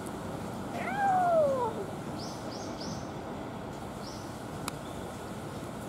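A cat gives one drawn-out meow about a second in, its pitch rising briefly and then falling away. A few short, high chirps follow a little later.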